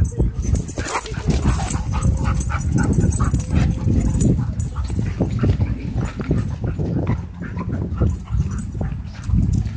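A German Shorthaired Pointer and a black Labrador play-wrestling, with short, irregular dog vocalizations through the bout, over a steady low rumble.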